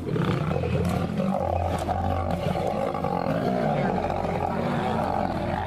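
Several lions fighting, males and lionesses together: continuous rough, overlapping snarls and roars with no break.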